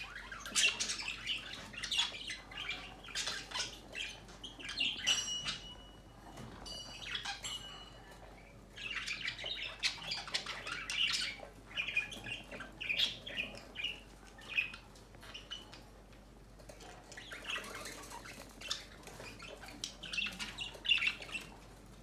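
Bird squawking and chirping in irregular bursts, with a steady whistled tone held briefly about a third of the way in.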